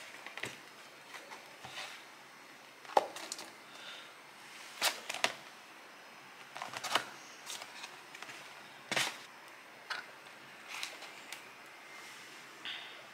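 A paper cake box being opened and handled: scattered rustles and short sharp clicks and taps of the cardboard flaps and the cake board, with a louder knock about 3 s in and another about 9 s in.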